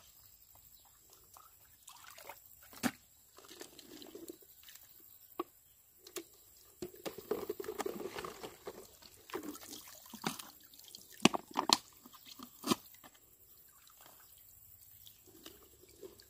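Water dripping and splashing, with scattered sharp taps and knocks, the loudest two about eleven and twelve and a half seconds in.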